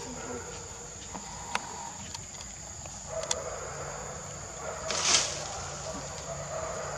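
Steady high-pitched drone of forest insects, with a couple of sharp clicks and a brief, louder noisy burst about five seconds in.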